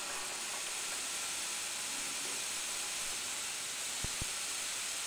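Automatic radiator air vent hissing steadily as trapped air escapes through it, its float valve still open while the radiator fills with water. Two light knocks about four seconds in.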